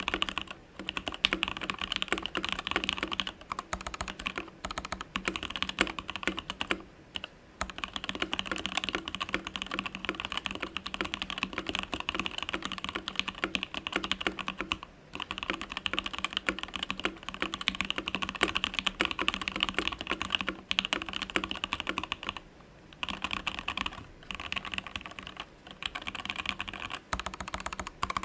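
Ikki68 Aurora mechanical keyboard with Lavender switches being typed on quickly and continuously, a rapid patter of keystrokes broken by a few short pauses.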